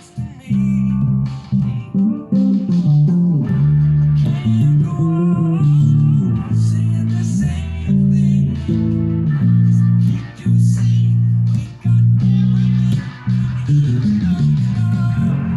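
Instrumental music led by a plucked bass guitar, playing low notes that change every half second or so, some sliding up or down in pitch, with short breaks between phrases.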